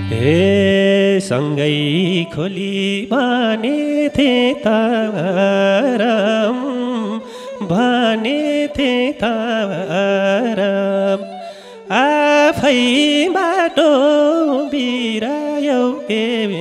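Nepali lok dohori folk band playing: an ornamented melody with bending notes over a steady held drone, with a few drum strokes. The low bass drops out about a second in.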